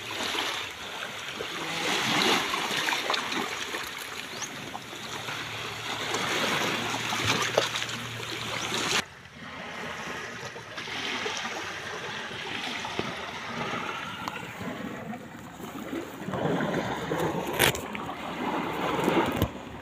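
Small waves lapping and washing against a rocky, sandy sea shore, a steady wash of water.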